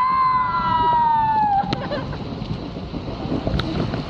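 A long high-pitched cry, held for just under two seconds and sliding slowly down in pitch, over a steady wash of water and wind noise on the microphone.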